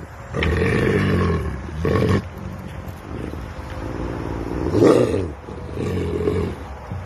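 An old grey-muzzled wolf giving a series of low, drawn-out vocal calls that rise and fall in pitch, the loudest about five seconds in.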